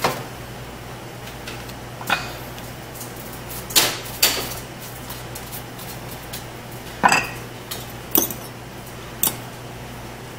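Scattered light knocks and clinks of kitchen utensils against a plastic cutting board and a small bowl, about seven in all, over a steady low hum.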